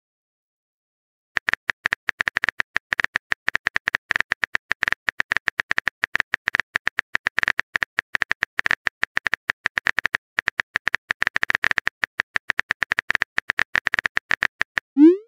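Smartphone keyboard typing sound effect: rapid, uneven taps for about thirteen seconds after a second of silence, then a short rising blip right at the end as a message comes in.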